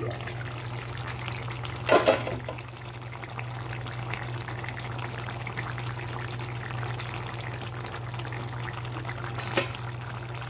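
Curry gravy boiling in a pan, a steady bubbling and crackling, with a brief louder clatter about two seconds in and a small knock near the end.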